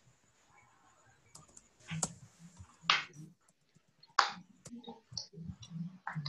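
A few sharp computer clicks, a mouse or keyboard, the loudest three about two, three and four seconds in, with smaller ticks between.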